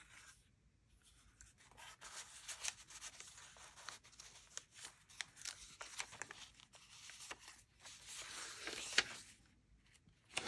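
Paper pages of a handmade junk journal rustling as they are turned and smoothed flat by hand, with a few light ticks. The rustle is faint and patchy and loudest near the end.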